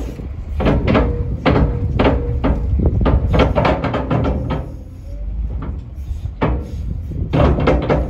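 Wheel loader's engine running with a steady low rumble under a run of clanks and knocks as its raised bucket tips straw manure into a steel trailer. The knocks come thick and fast in the first few seconds, then twice more near the end.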